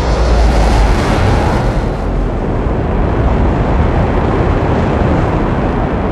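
Designed sci-fi spaceship engine sound effect: a loud, dense rumble with a hiss on top. It is heaviest for the first two seconds, then eases slightly and holds steady.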